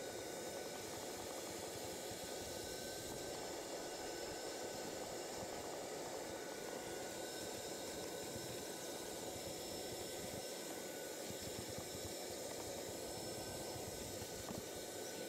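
Vacuum running steadily while carpet is cleaned: an even rushing hiss with a faint, constant high whine from the motor.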